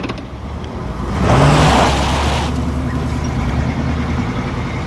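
Vintage Cadillac convertible's V8 engine revving up about a second in as the car pulls away, then running steadily as it drives off.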